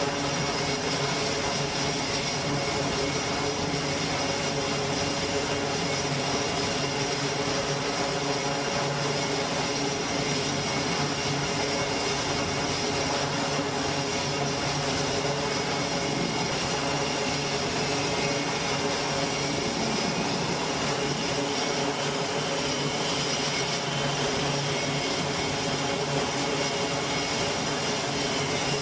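E-2C Hawkeye's twin Allison T56 turboprop engines running steadily at ground power with the propellers turning, a high whine over a constant rushing drone.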